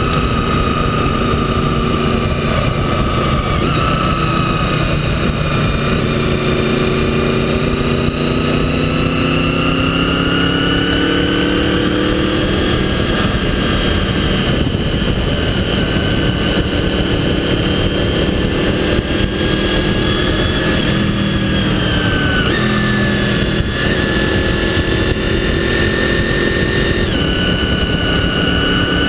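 Motorcycle engine running at riding speed under heavy wind and road rush. Its pitch drifts slowly up and down and steps abruptly twice, about 22 and 27 seconds in.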